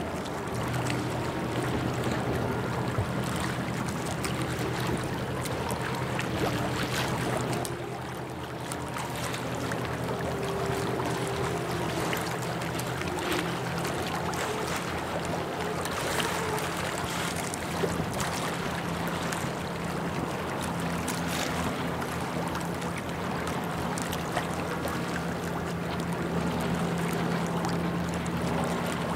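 Harbour ambience: a steady low hum under a constant wash of wind-like noise, with faint scattered clicks.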